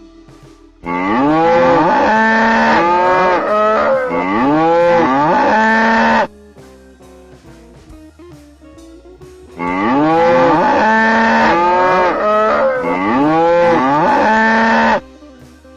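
Cow mooing in a run of rising-and-falling calls lasting about five seconds, and the same stretch heard again after a short gap, over quieter guitar music.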